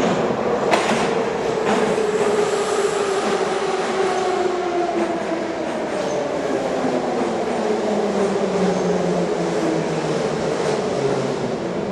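Kyiv metro train of Soviet 81-717/714-type cars pulling into the station and braking, a whine that falls steadily in pitch as it slows over a steady rumble. Two sharp clicks come in the first two seconds.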